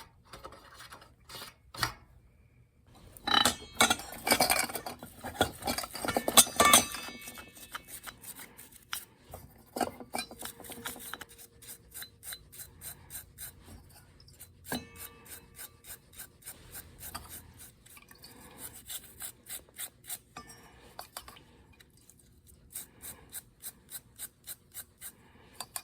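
Toothbrush scrubbing small metal hand-drill parts wet with kerosene, first in a loud burst of scrubbing, then in quick, even strokes about two to three a second. Two light metallic clinks, each with a short ring.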